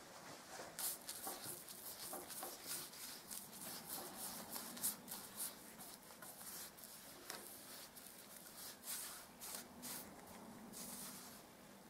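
Paintbrush applying paint along a wooden threshold: faint, quick swishing strokes of the bristles on the wood, about three a second.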